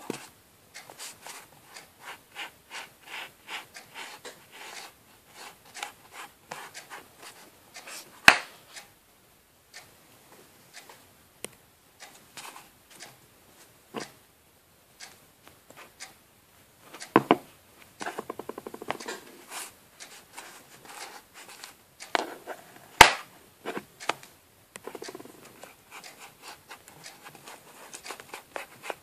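Scattered small taps, clicks and rubs of handling at a tabletop, with two much louder sharp clicks, one about eight seconds in and one about twenty-three seconds in.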